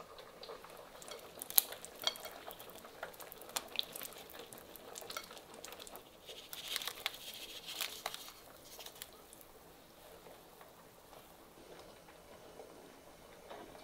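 Raw flour-dusted meatballs pushed off a ceramic plate with a plastic spoon into a pot of simmering broth. A few light clicks of spoon and plate come first, then a cluster of soft plops and splashes about seven to eight seconds in as the meatballs drop in, and after that a gentle stir in the broth.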